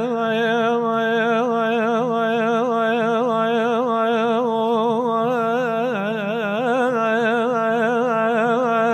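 A man singing one long, unbroken melismatic phrase, a held note decorated with wavering ornaments and vibrato.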